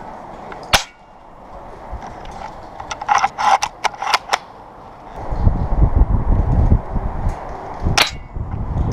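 Airsoft gun shots: a single sharp snap under a second in, a quick burst of snaps around three to four seconds in, and another single snap near the end. A low rumbling, thudding noise starts about five seconds in.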